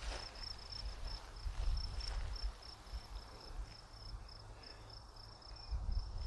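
An insect, cricket-like, chirping steadily in short high-pitched pulses, about three a second. A few faint footsteps on the trail come early on.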